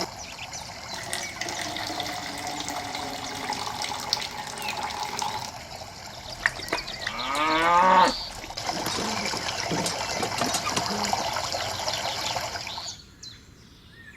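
Water running and splashing steadily, with a cow mooing once, a single rising call of about a second, just past the middle. The water sound drops away near the end.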